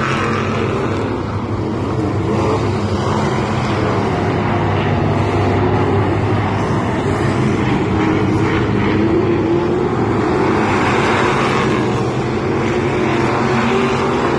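Several street stock race cars running laps in a feature race, their engines a steady loud sound under throttle that swells in the second half as cars come closer.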